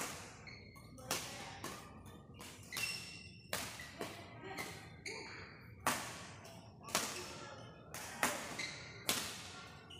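Badminton rackets striking a shuttlecock in a fast doubles rally: about ten sharp hits, roughly one a second, each echoing in a large hall.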